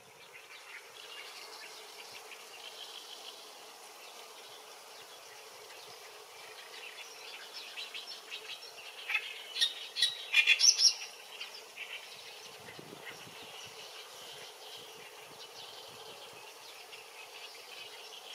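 Steady faint insect-like chirring of the outdoor background, broken about halfway through by a short run of loud, rapid bird chirps.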